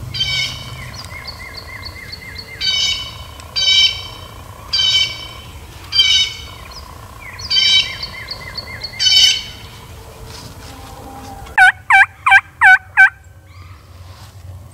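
Birds calling over and over in woodland, short high calls with quick chirps between them. Near the end come five loud turkey yelps in quick succession.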